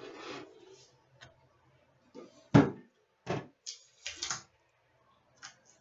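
A few sharp knocks and clatters from a card tin and packs being handled and set down on a glass table top. The loudest knock comes about two and a half seconds in, with smaller ones after it.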